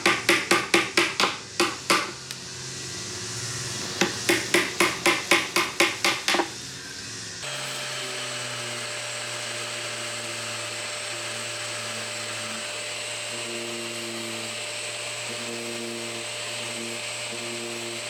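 Two runs of fast, even knocking, about six strikes a second, then a power tool that starts about seven seconds in and runs steadily with a constant hum and a high whine.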